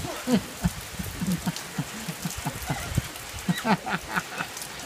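Heavy rain pouring down, with many big drops landing close by at an irregular few per second.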